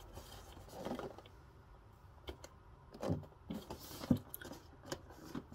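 Faint scattered taps, scrapes and rustles of cardboard gift boxes being handled, one box put aside and another picked up.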